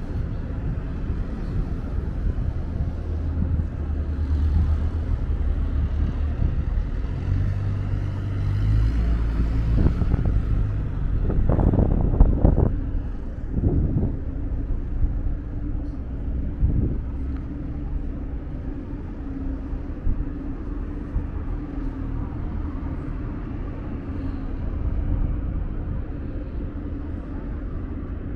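Downtown city ambience: a steady low rumble of traffic with a constant hum under it, growing louder and rougher for a few seconds about halfway through.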